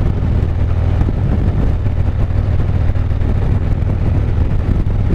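Harley-Davidson Street Glide's V-twin engine running steadily at cruising speed, a constant low drone mixed with wind and road noise.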